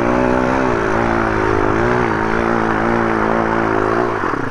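MRF 140 RC pit bike's single-cylinder four-stroke engine held at high revs on a steep snowy hill climb, the pitch rising and dipping slightly under load. The revs drop away about four seconds in.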